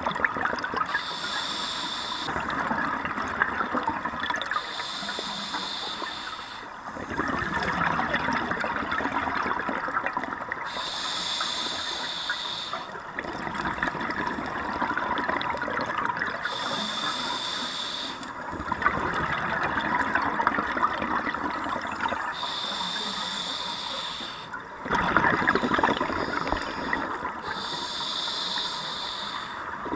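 Scuba regulator breathing underwater, in a regular cycle about every five to six seconds: a hissing inhalation through the regulator alternates with a louder, lower rush of exhaled bubbles.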